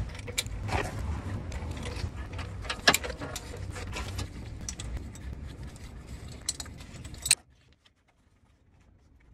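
Metal hand tools clinking and tapping on a car's drive belt pulley and its bolt as the pulley is unscrewed, over a low steady rumble. The sound cuts off suddenly about seven seconds in, leaving near silence.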